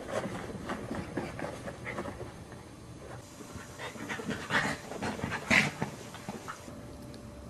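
Dog panting quickly, with a few louder breaths between about four and six seconds in.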